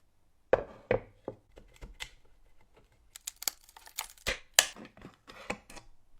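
A series of sharp knocks and clicks with short scrapes between them, starting about half a second in: hand work on the old bread cutter's metal parts.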